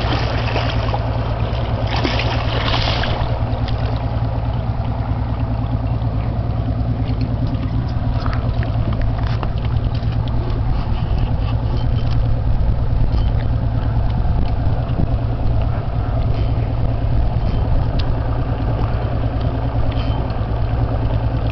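Boat engine running steadily at low speed, a steady low hum over a wash of noise, with a few faint clicks.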